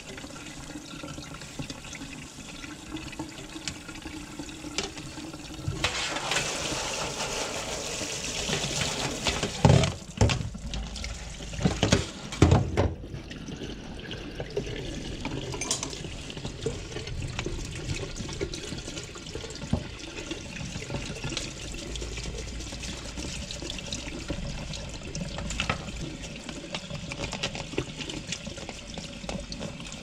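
Kitchen tap running into a stainless steel sink as a plastic tumble dryer filter frame is rinsed and scrubbed under it, the flow louder for a few seconds early on. A few sharp knocks come between about ten and thirteen seconds in.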